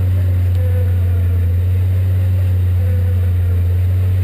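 Truck engine running steadily, a loud, even low drone that does not change.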